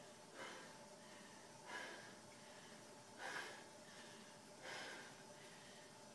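A person breathing hard, out of breath after an intense workout: four heavy breaths about a second and a half apart.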